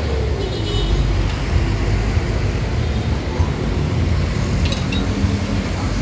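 Steady low rumble of engines or road traffic, with a brief light metallic clink of hand tools near the end.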